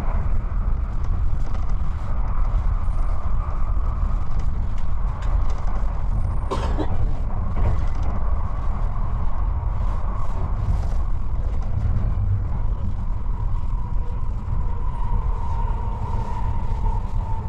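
Kintetsu Hinotori limited express train running, heard from inside the passenger cabin: a steady low rumble of wheels on rail. There is one sharp click about six and a half seconds in, and a thin whine that grows stronger near the end.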